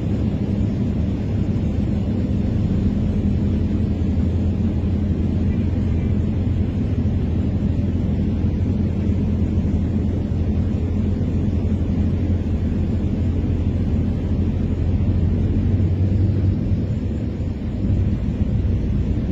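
Steady low rumble, dipping briefly near the end.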